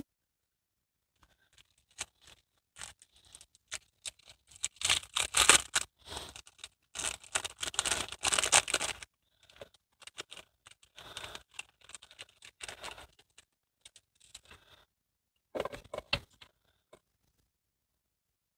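Clear plastic packaging crinkling and rustling as it is torn open and handled, in irregular bursts with small clicks, busiest a few seconds in.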